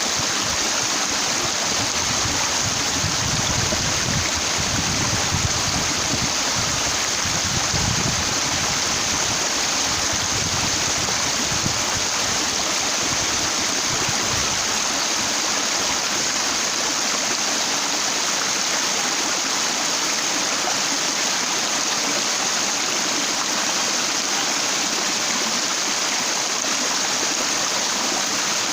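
Stream water rushing and splashing steadily over a broad flat rock. Some uneven low rumbling runs under it during the first half.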